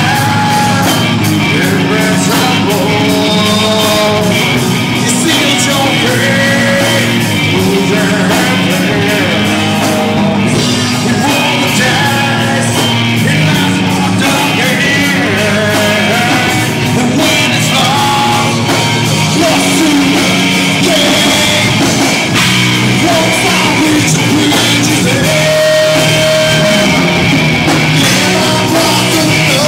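Live rock band playing a song, with drums and bass under a sung lead vocal, loud and continuous.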